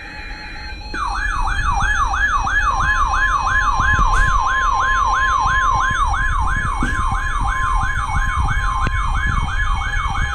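Emergency Alert System tones from NOAA Weather Radio. A brief burst of the header's digital data buzz ends just under a second in. It is followed by a loud siren-like alert tone that falls in pitch over and over, about two and a half times a second. A steady attention tone joins beneath it a couple of seconds in, marking the start of a new weather warning.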